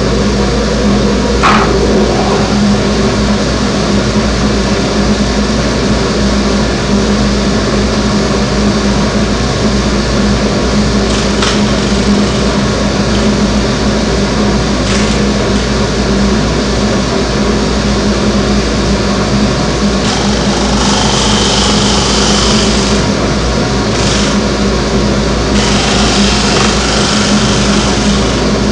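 Big homemade disc sander running steadily, with an oak block being sanded against its abrasive disc; the sanding grows louder and hissier in two stretches, about two-thirds of the way through and near the end. A few light knocks are heard along the way.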